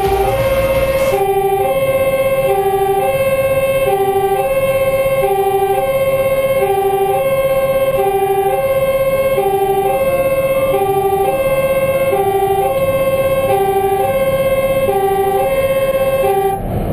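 Fire engine's two-tone siren sounding a steady high-low alternation, switching pitch about every two-thirds of a second, heard from inside the truck's cab over its engine hum. It cuts off shortly before the end, leaving the truck's engine and road noise.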